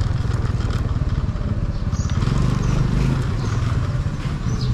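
Motor scooter's small engine running at low speed as the scooter rolls along, a steady low hum.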